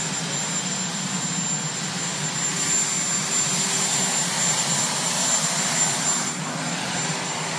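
Marine One presidential helicopter's turbine engines running on the ground: a steady high-pitched whine over a constant rush of engine and rotor noise.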